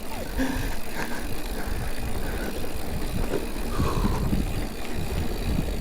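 Hardtail mountain bike being ridden on a trail: a steady low rumble of tyres and air with scattered small knocks and rattles.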